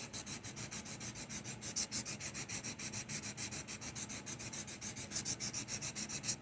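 Charcoal pencil lead being sanded to a point on a sandpaper sanding block, a steady run of quick rasping strokes, about six a second, that stops suddenly at the end.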